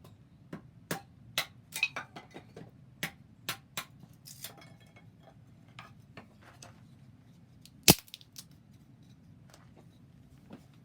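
Wood burning in a wood stove, crackling with irregular sharp snaps and pops, busiest in the first few seconds, with one much louder crack about eight seconds in.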